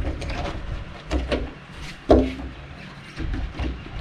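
Clicks and knocks of a glue-pull mini lifter being handled and seated over a glue tab on a car's roof panel during paintless dent removal, with one brief louder low sound about two seconds in.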